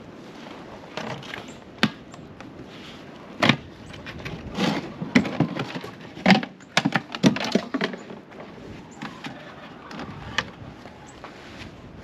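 A run of sharp, irregular knocks and clatters, bunched from about three and a half to eight seconds in, over a faint steady background.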